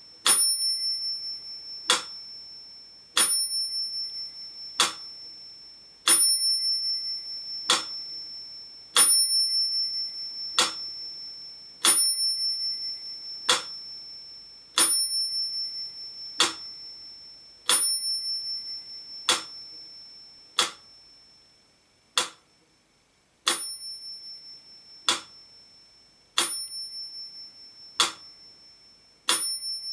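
Mechanical pendulum metronome set to 40 bpm, ticking about every second and a half, with its bell ringing on every second beat. The high ring lingers between the ticks. The ticks fall slightly unevenly, alternating a little longer and a little shorter.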